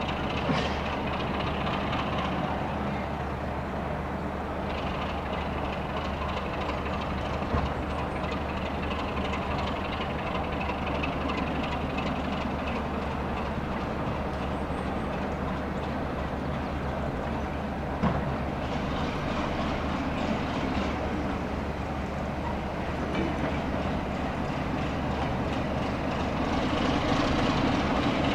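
Class 33 diesel-electric locomotive's Sulzer eight-cylinder engine running steadily, with a few sharp knocks, growing louder near the end.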